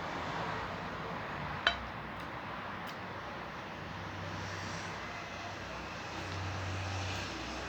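A single sharp clink of cutlery against a plate about a second and a half in, with a couple of fainter ticks, over steady low background noise that swells twice near the end.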